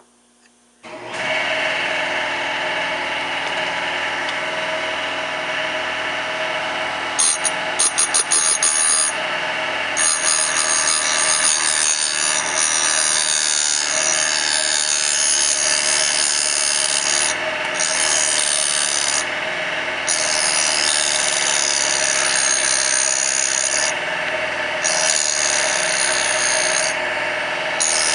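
A Bridgeport milling machine's spindle motor starts about a second in and runs steadily, driving a cutting wheel. From about seven seconds a loud grinding hiss joins it as the wheel grinds the rounded-over dogs of a KX500 transmission gear, briefly stopping several times.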